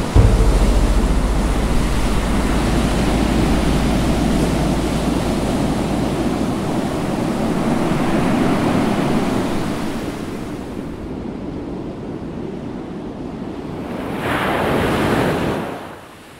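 Rough open sea rushing and breaking around a sailboat in strong wind, with wind buffeting the microphone. A fresh surge of water and spray hits near the end, then the sound fades away.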